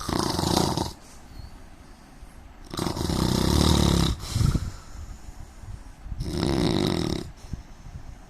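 A man snoring: three long snores, each lasting about a second, coming about three seconds apart.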